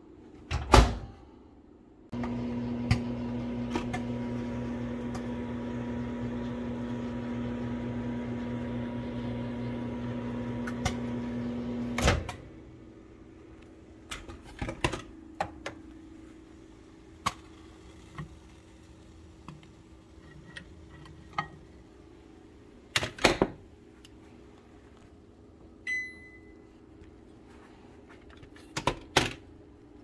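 Microwave oven door shut with a loud clunk, then about ten seconds of the oven running with a steady electrical hum, cut off with a clunk about twelve seconds in. After that come scattered knocks and clatters, two louder ones, and a short high beep.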